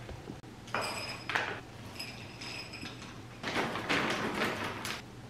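Dry dog kibble being scooped from a paper food bag and poured into a bowl, with the bag rustling. It comes in three short bursts of rattling and rustling, about one, two and a half and four seconds in.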